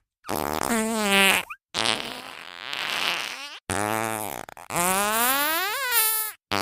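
A string of cartoon fart sound effects: about four separate toots with short silences between, the pitch wavering up and down, the last one rising steadily in pitch. Another begins just at the end.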